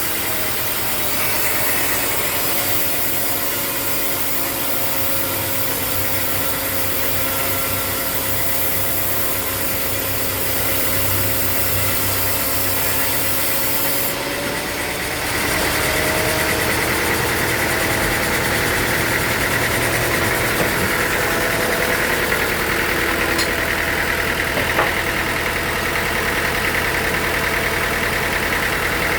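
Sawmill machinery running steadily with an engine, holding several steady tones. The sound changes abruptly about halfway through.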